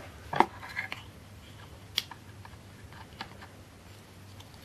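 A few small, sharp plastic clicks and taps as a tiny PVC figure and its plastic stand are handled and fitted together, the sharpest about two seconds in, with a brief rustle of plastic wrapping near the start.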